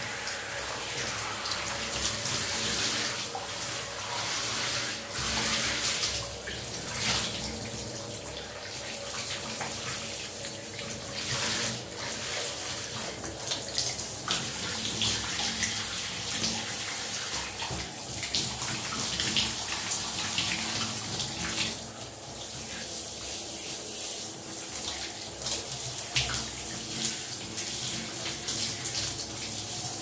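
Shower running while someone showers: a steady spray of water splashing, with uneven splatters as the stream breaks against the body and surfaces. A faint steady hum lies underneath.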